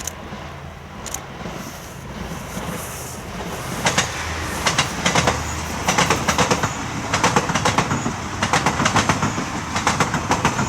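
Yufuin no Mori diesel limited express train passing, its wheels clicking over rail joints in quick clusters over a low rumble. The clicking grows louder from about four seconds in.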